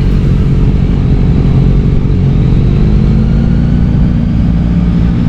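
Yamaha XSR900's 890 cc inline-three engine running steadily under way, its pitch rising slightly in the middle.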